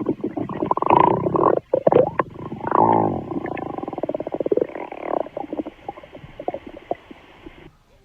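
Stomach growling: long stretches of rapid gurgling rumbles, with a groan that falls in pitch about three seconds in. It trails off into fainter, scattered gurgles and stops near the end.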